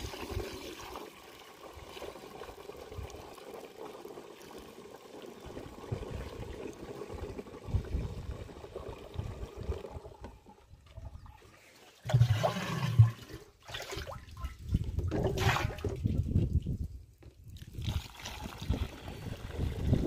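Milky fertiliser-and-pesticide drench mixture poured from a plastic bucket through the mesh strainer into a knapsack sprayer tank, splashing as the tank fills. The pour pauses about halfway through, then resumes with louder gushes.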